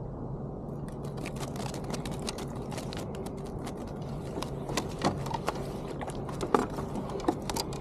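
Scattered small clicks, taps and rattles of a rainbow trout being handled and unhooked in a landing net on a kayak, with a few louder knocks in the second half, over a steady low background hum.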